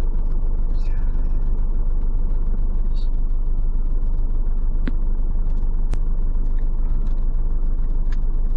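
Four-wheel-drive vehicle driving on soft sand: a steady low engine and drive rumble with scattered light ticks and rattles.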